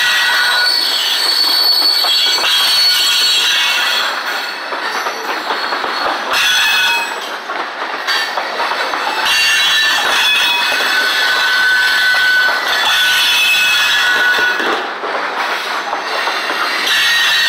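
Freight cars (covered hoppers) rolling past on the rails, their steel wheels squealing in high, thin tones that come and go over the steady rolling noise.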